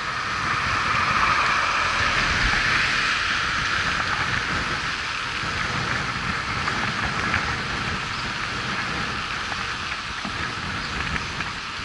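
Wind and road noise picked up by a camera on a moving road bike: a steady rushing hiss, loudest about a second or two in, with a few faint ticks later on.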